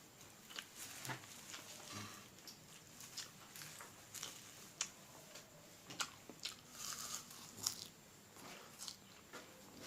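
Close-up chewing and biting of food, with irregular crisp crunches and wet mouth clicks.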